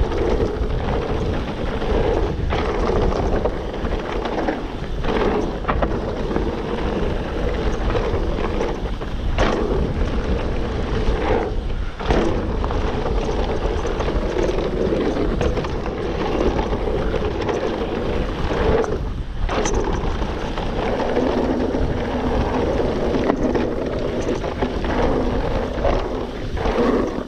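Wind buffeting an action camera's microphone as a mountain bike descends a dirt trail at speed, with tyre rumble and scattered knocks and rattles from the bike over the rough ground.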